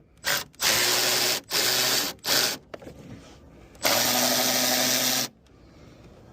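Power drill spinning the 10mm nuts off a Mustang taillight's studs, in five short bursts with a steady motor whine, the last and longest run starting about four seconds in.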